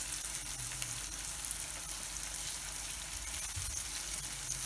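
Beaten eggs with onion and spices frying in oil in a pan, a steady sizzle and crackle, the eggs almost cooked through.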